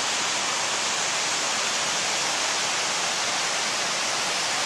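Waterfall and the stream cascading below it: a steady, even rush of falling water.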